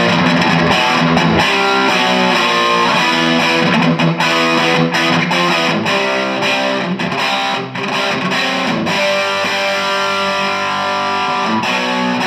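Electric guitar played through the Dynamo GTS Flight Rig tube preamp's clean channel with its gain turned up, playing rhythm chords with a light crunch. The chords ring on, with a few short breaks between them.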